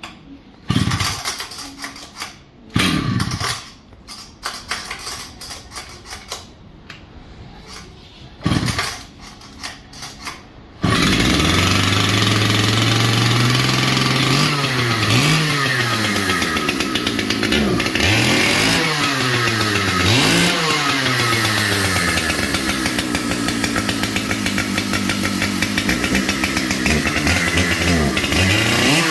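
Vintage two-stroke chainsaw being started: a few short, loud coughs in the first ten seconds, then it catches about eleven seconds in and keeps running, revved up and down several times.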